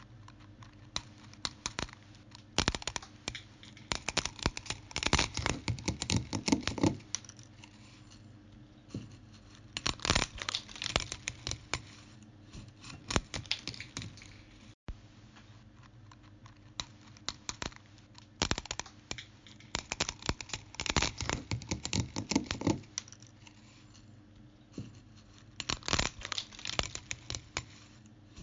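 Bursts of rapid small clicks and crackles close to the microphone, each lasting several seconds with short pauses between, like keys being typed or paper being handled.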